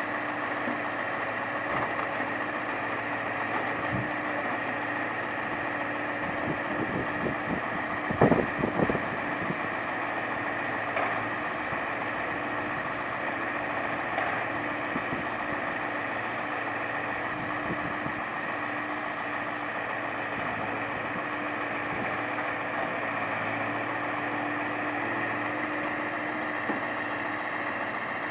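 Scania timber truck's engine running steadily to power its loader crane, with a steady hum throughout. A cluster of heavy knocks about eight seconds in, as an oak log is set down on the pile.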